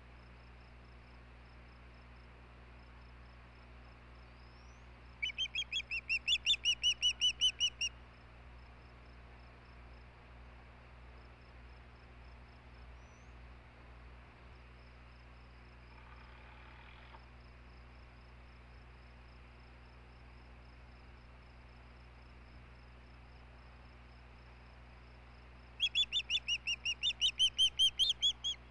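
Osprey calling in two series of rapid whistled chirps. Each series runs about three seconds at roughly five notes a second: the first about five seconds in, the second near the end.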